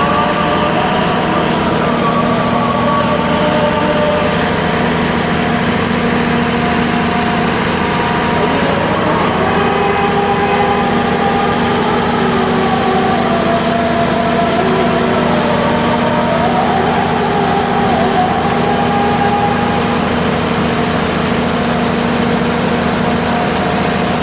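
Vehicle engines running steadily in traffic, with a constant low hum and some faint wavering tones about midway.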